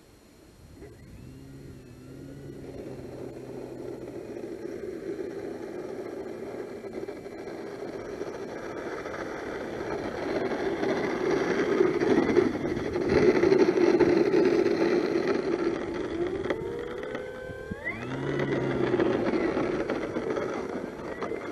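Electric motor and propeller of an E-flite Carbon-Z Cessna 150 RC float plane running on snow. A steady whir grows louder over the first dozen or so seconds. Short throttle blips rise and fall in pitch about a second in, and another rises near the end.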